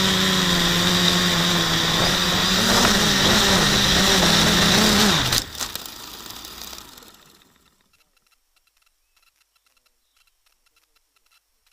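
Quadcopter's Suppo 2212 brushless motors spinning 9x5 propellers, a loud steady hum whose pitch wavers up and down with throttle changes. About five seconds in the motors cut off suddenly and wind down over about two seconds, leaving near silence with faint regular ticking.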